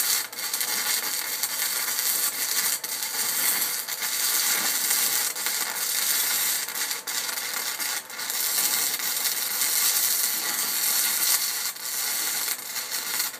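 Harbor Freight arc welder stick-welding quarter-inch steel plate: a steady crackling hiss from the arc, with a few brief dips, that cuts off abruptly at the end.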